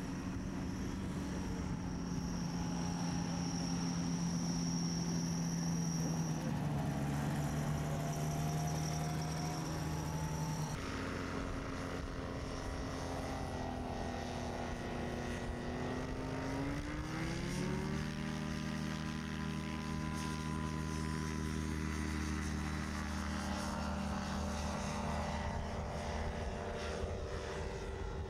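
Rotax 582 two-stroke twin engine and pusher propeller of a Carrera 180 ultralight running steadily, the note sagging and then, about 17 seconds in, climbing quickly to a higher steady pitch as the throttle is opened.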